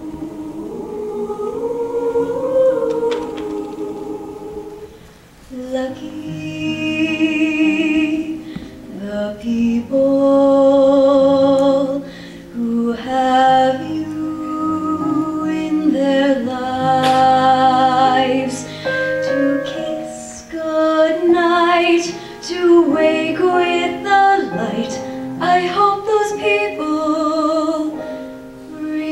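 A show choir singing held chords in close harmony, with a female soloist's voice on a microphone carrying over the choir. The chords change every second or two, and the sound drops briefly about five seconds in before the full choir comes back.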